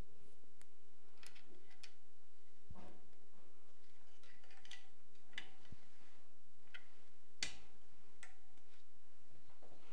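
Irregular clicks and clacks of gun parts being handled as a PT-1 buttstock is fitted to a Vityaz-SN submachine gun, with the sharpest click about seven and a half seconds in.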